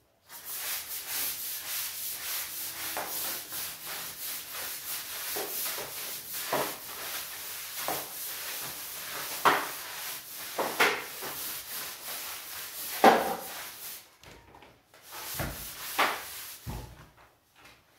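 Stiff-bristled scrub brush scrubbing a wet, soapy tiled floor in quick back-and-forth strokes. The scrubbing stops about 14 seconds in and is followed by a few light knocks and two low thumps.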